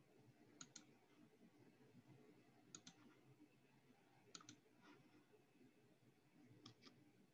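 Four faint computer mouse clicks, each a quick pair of ticks from the button going down and coming back up, spaced about a second and a half to two seconds apart.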